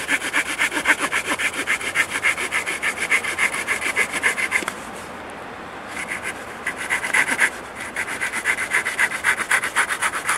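Small folding saw blade cutting through a thin wooden stick with quick back-and-forth strokes, about four or five a second. The sawing breaks off for about a second a little before halfway, pauses briefly again later, and stops near the end as the piece is cut off.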